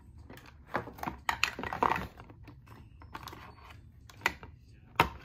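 Small plastic toy figures and playset pieces clicking and tapping against each other as they are handled, in an irregular clatter: a cluster of taps about one to two seconds in, a few more later, and a sharp knock near the end.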